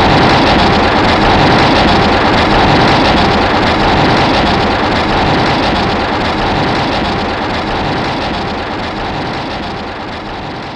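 Godzilla film sound effect: a loud, dense noise that starts suddenly and then holds, slowly fading over about ten seconds.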